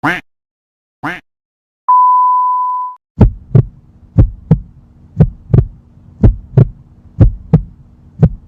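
Two short blips with a wavering pitch, then a steady beep tone lasting about a second. From about three seconds in comes a heartbeat sound effect: paired thumps (lub-dub) about once a second over a low hum.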